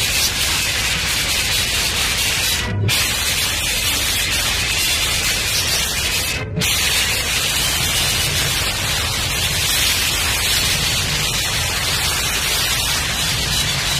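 A steady hiss like static or white noise, even across high and low pitches, broken twice by very short dropouts, about three and six and a half seconds in.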